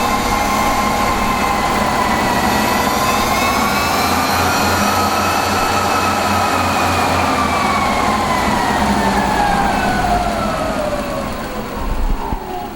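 A siren-like whine over a steady engine noise, slowly rising in pitch and then gliding down over the last few seconds as it fades.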